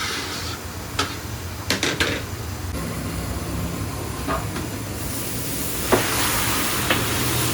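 Cooking at a large pot: a steady hiss of steam or sizzling, with a few sharp clinks, and the hiss grows louder about five seconds in.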